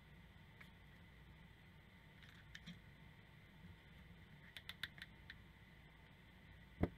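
Faint clicks from a DeWalt cordless drill's keyless chuck being twisted tight by hand around a bolt, with a quick run of about five clicks in the middle. Near the end comes a single thump as the drill is set down on the wooden workbench.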